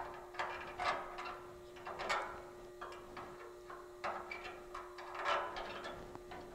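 Stainless steel mesh grate being handled and pressed into place against the sheet-metal hood side, giving scattered light clicks and scrapes of metal on metal, over a steady faint hum.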